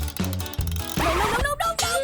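Upbeat children's background music with a steady bass beat; about halfway through, a whooshing swell and sliding tones come in.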